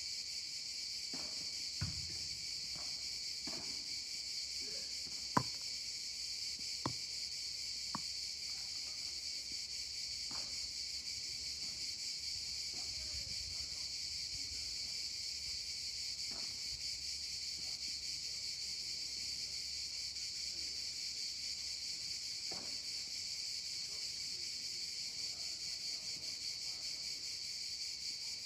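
Steady high-pitched insect chorus, typical of cicadas in summer pines, with a few sharp knocks of padel rackets hitting the ball in the first ten seconds, the loudest about five seconds in.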